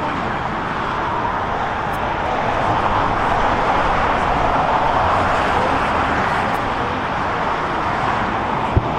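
A steady roar of vehicle noise that swells a little through the middle and eases off again, with a short thump near the end.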